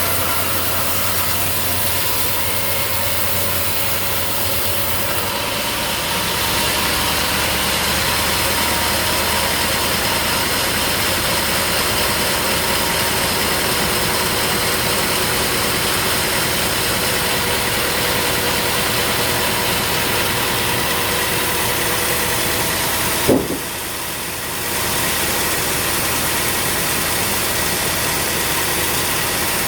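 Sawmill machinery running steadily. About three-quarters of the way through there is one sharp knock, and the noise drops for about a second before coming back.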